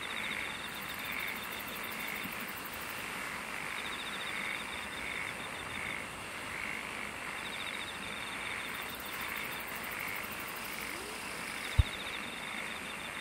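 Outdoor chorus of frogs and insects: one call repeats about twice a second, short rapid trills come back every couple of seconds, and a faint high buzz pulses in and out over a steady hiss. A single short low thump near the end.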